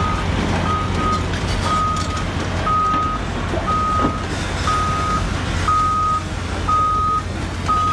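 Backup alarm of a heavy vehicle beeping steadily, about one half-second beep each second, over the steady low rumble of its engine.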